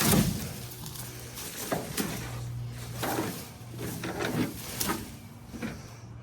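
Cut tree limbs being tossed and dropped into a pickup truck bed: a string of irregular wooden thuds and knocks with rustling between them, the loudest right at the start. A low steady hum runs underneath.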